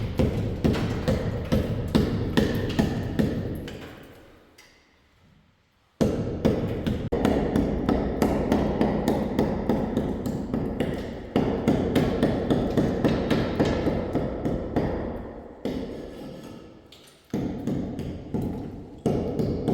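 Rapid repeated knocks, several a second, in stretches that fade or break off and start again abruptly.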